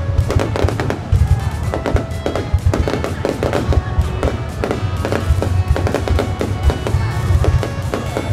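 Fireworks going off in rapid, continuous bangs and crackles, with music playing over them and a heavy, pulsing low end.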